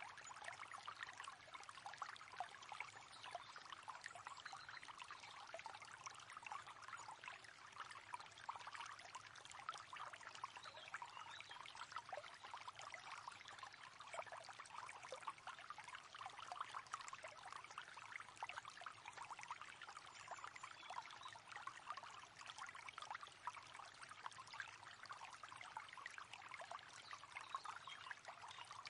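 River water flowing steadily over stones, a constant babbling and trickling.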